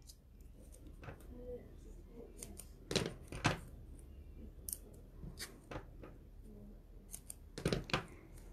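Scissors snipping double-sided foam tape into small pieces: a couple of short sharp snips about three seconds in and two more near the end, with light tape-handling clicks between.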